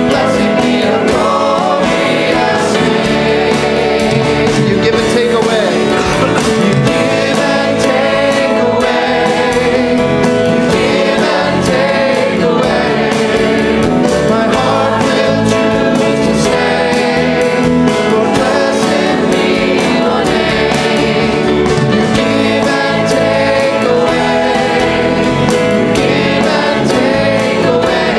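Church choir and congregation singing a hymn together with instrumental accompaniment.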